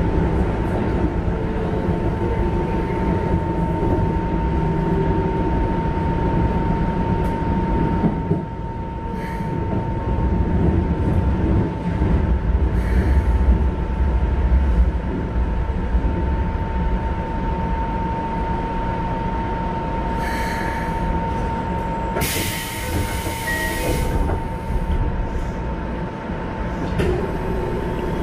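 Interior running sound of a Keikyu 1500 series electric train with Mitsubishi GTO-VVVF control, with a steady rumble and a steady whine as it runs into a station and comes to a stop. Late on there is a two-second hiss, and near the end the doors slide open.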